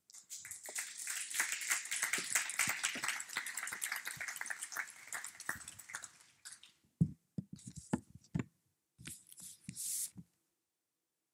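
Papers and plastic folders rustling and shuffling close to a lectern microphone. A few sharp knocks come around two-thirds of the way in as items are set down on the lectern, followed by short bursts of rustling that stop near the end.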